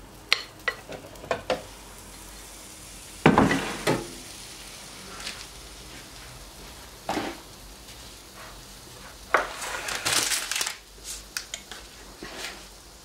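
Kitchen handling sounds around an electric waffle maker with batter cooking in it: several sharp clicks of a spatula against a batter bowl, a louder knock a little over three seconds in, and a short hissing sizzle around ten seconds in.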